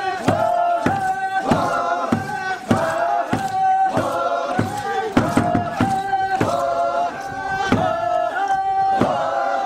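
Music track of several voices chanting together in held notes, over a steady beat a little under twice a second.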